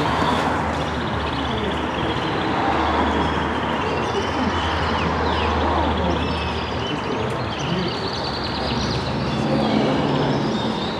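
Background chatter of many people in a show hall, with caged canaries singing fast trilling runs over it and a steady low hum underneath.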